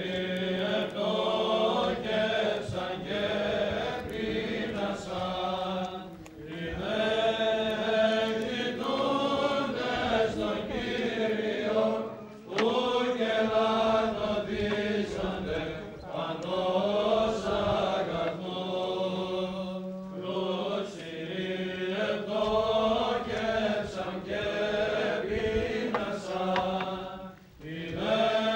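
Greek Orthodox Byzantine chant: voices singing slow, drawn-out hymn phrases over a steady held drone note (the ison), with short breaths between phrases.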